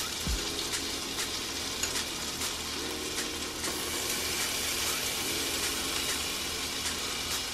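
Butter melting and sizzling in a hot nonstick skillet on an electric coil burner: a steady hiss with scattered small pops and crackles.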